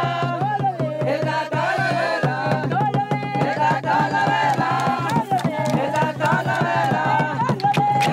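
Group of women singing a traditional ceremonial song honouring their ancestors, over a hand drum beaten in a fast, steady rhythm, with hand clapping.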